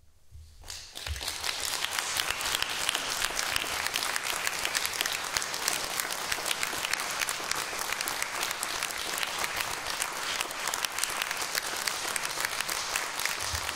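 Audience applauding after a musical piece, breaking out just under a second in and continuing steadily.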